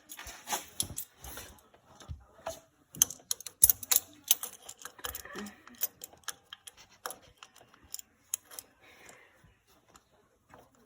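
Irregular metallic clicks and clinks of Williams vise grips (locking pliers) being handled, set and clamped onto the tractor's PTO housing vent to snug it, busiest a few seconds in and tapering off near the end.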